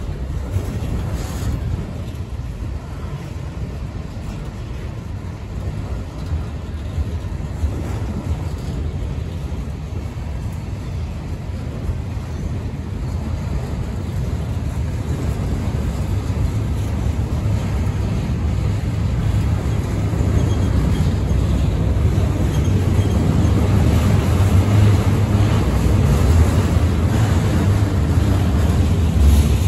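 Enclosed autorack freight cars of a CSX train rolling past: a steady low rumble of steel wheels on rail, growing louder through the second half.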